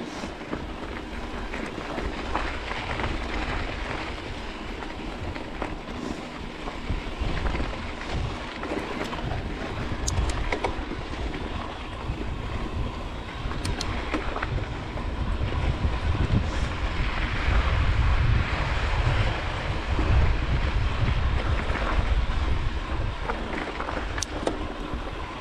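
Wind buffeting the microphone over mountain bike tyres rolling on a loose gravel dirt road, with scattered clicks and rattles from stones and the bike. The wind rumble grows heavier past the middle.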